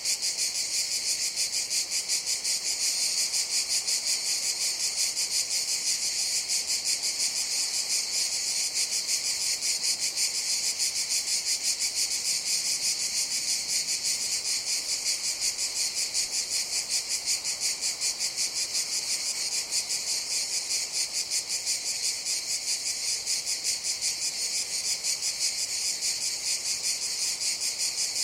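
Cicadas buzzing in a dense, unbroken chorus: a steady, high-pitched drone with a fast, even pulse.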